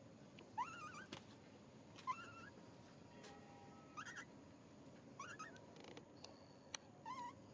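Baby pigtail macaque crying: five short, high, wavering cries that rise at the start, spaced a second or two apart.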